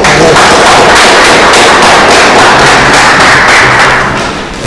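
Small audience applauding: many dense hand claps that fade out about four seconds in.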